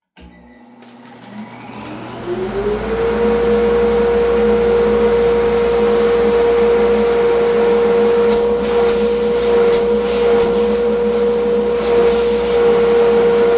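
General 1½ HP dust collector switched on: its motor and impeller spin up with a rising whine over about three seconds, then run steadily with a loud rush of air. The freshly repaired machine is working and drawing strong suction.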